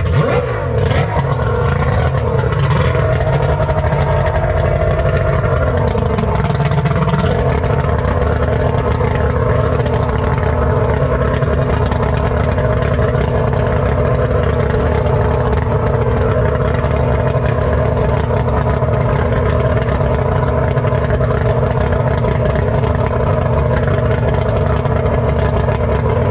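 Two-stroke outboard boat engine idling steadily and loud, with a few small shifts in pitch in the first several seconds.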